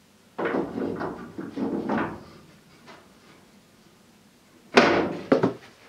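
A plywood glovebox being handled in a truck's sheet-metal dashboard opening: wood scraping and rubbing against the metal for a couple of seconds, then a sharp wooden knock near the end followed by two lighter clicks.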